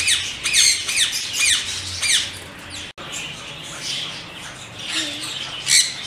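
Caged parakeets squawking: a rapid run of short, sharp, high calls several times a second, breaking off suddenly about halfway. After that come scattered calls and one loud squawk near the end.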